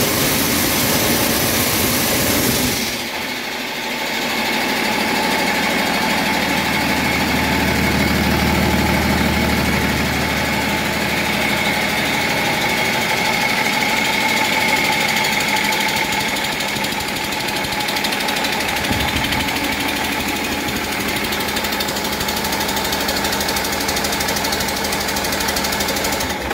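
Cummins B6.7 inline-six turbo diesel running steadily on an engine test stand, with a steady whine over the engine sound; its level drops a little about three seconds in. The used engine is being test-run and runs well.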